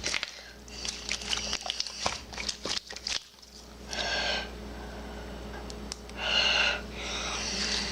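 Homemade slime being squished and stretched by hand, a dense run of sticky crackles and little popping clicks, followed by two short high-pitched squeaks about four and six seconds in.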